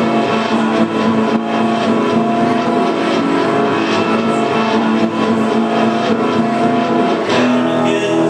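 Loud live band music: a strummed acoustic guitar holding chords over drums and cymbals.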